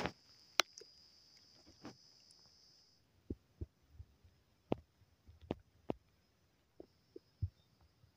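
Scattered light clicks and knocks of a utensil and hands working chopped raw chicken in a steel bowl, the sharpest about half a second in. A steady high hiss runs underneath for the first three seconds, then stops.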